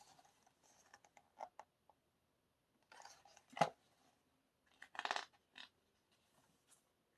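Paper and card being handled: soft rustles and light clicks, with one sharper click about halfway through and a longer rustle shortly after.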